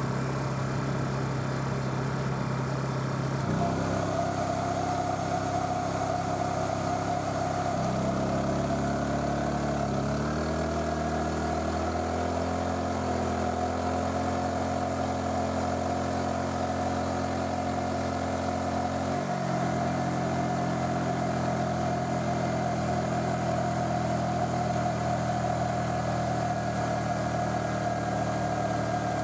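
Small portable inverter generator's engine running under a hair-dryer load that is too large for it. The engine picks up speed when the load comes on a few seconds in, changes pitch again about a third of the way through and again past the middle, and a steady high whine runs alongside from that first step up.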